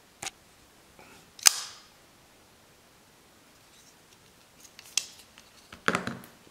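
Clicks of a closed Extrema Ratio BD4 Lucky folding knife being handled: a small click, then a sharp metallic click with a brief ring about a second and a half in, a few lighter clicks later, and a knock and clatter near the end as the knife is set down on a cutting mat.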